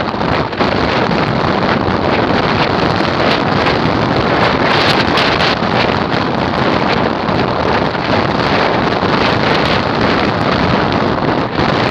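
Strong wind buffeting the phone's microphone, steady throughout, with surf breaking on the beach beneath it.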